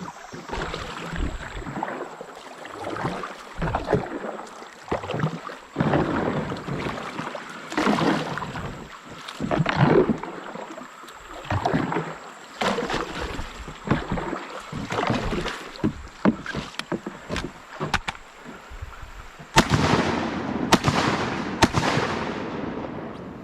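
Kayak paddle strokes swishing and splashing in river water. About twenty seconds in, three sharp shotgun shots come in quick succession at a flushing flock of geese: one, then two rushed follow-up shots about a second apart.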